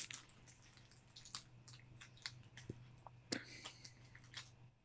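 Faint chewing of a big mouthful of donair: soft wet clicks and smacks, a little stronger about once a second, over a low steady hum.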